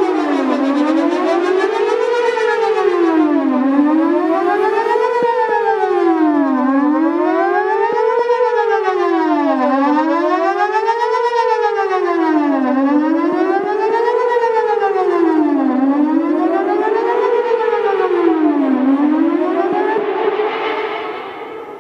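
Whelen WPS-4008 electronic outdoor warning siren with a rotating speaker array, sounding a wail that glides up and down about every three seconds. The wail fades out near the end as the test finishes.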